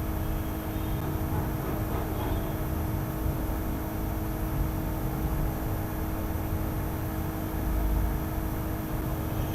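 Steady low background rumble with a constant hum underneath, swelling briefly about eight seconds in.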